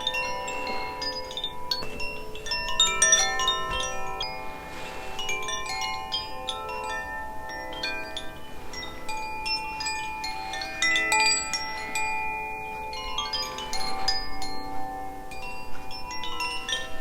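Two Koshi chimes in the Aria (air) and Ignis (fire) tunings ringing together, their clappers striking the tuned rods. The result is a continual overlapping shimmer of bell-like tones, with busier flurries of strikes about three, eleven and fourteen seconds in.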